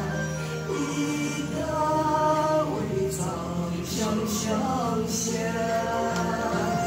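Women singing along to a recorded song with instrumental accompaniment, holding long, gliding notes. It is a sing-along of a newly composed devotional song.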